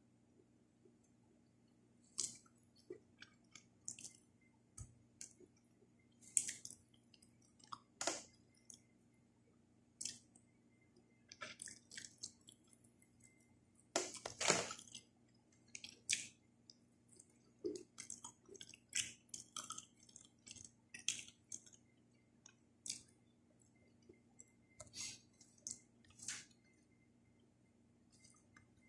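Close-up eating sounds of a person eating milkfish and fresh vegetables with the hands: irregular wet chewing and sharp mouth clicks, with a louder cluster about fourteen seconds in as food goes into the mouth.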